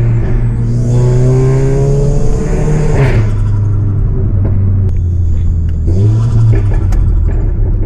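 Tuned Volkswagen Golf GTI's turbocharged 2.0-litre four-cylinder with a loud, decatted exhaust, accelerating hard with the engine note rising for about three seconds. There is a sharp break at the gear change about three seconds in, then it pulls on steadily with a few short pops near the end.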